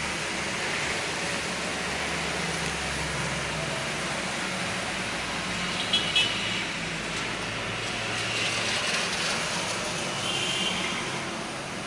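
Steady hiss of monsoon rain and of traffic on the wet streets, with two short, sharp beeps about six seconds in.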